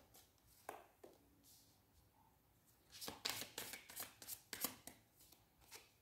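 A deck of tarot cards being shuffled and handled: a couple of soft clicks in the first second, then from about three seconds in a quick run of card snaps and slaps.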